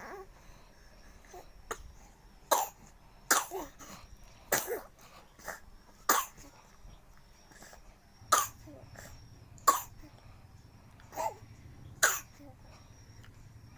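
A small child coughing over and over: about eight sharp coughs, a second or two apart, starting about two seconds in.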